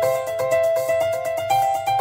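Background music: a piano-like keyboard melody over a steady beat.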